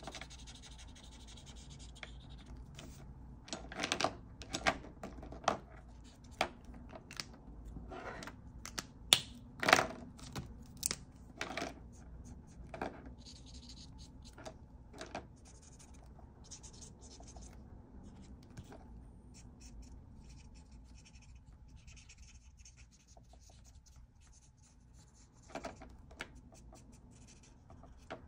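Ohuhu marker tip scratching and rubbing across paper in quick colouring strokes, busiest in the first half, with a few more near the end.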